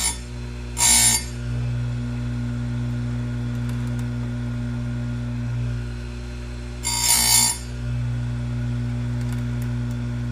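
Tecomec FL-136 electric chain grinder's motor running steadily, reversed to grind the opposite-side cutters, with the abrasive wheel grinding a cutter of a dull saw chain twice: short, loud rasping bursts about one second in and about seven seconds in.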